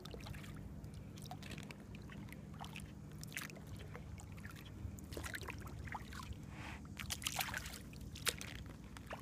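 Faint water sounds around a small plastic kayak on calm water: quiet lapping and dripping with scattered small splashes and clicks, thickest around seven seconds in.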